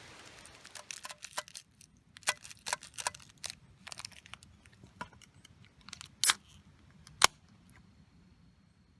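Irregular sharp clicks and light knocks of small objects being handled, with two louder snaps about six and seven seconds in.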